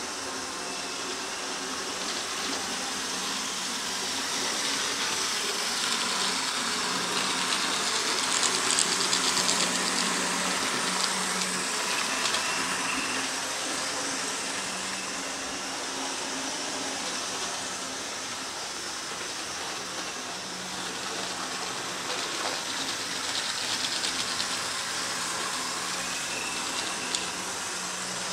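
HO-scale model diesel locomotives running on track: a steady motor whir and wheel rattle with a faint hum, swelling twice as trains pass close.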